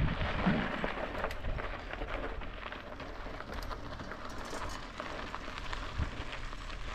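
Bicycle tyres crackling over a sandy dirt road, with many small ticks over a low, steady rumble.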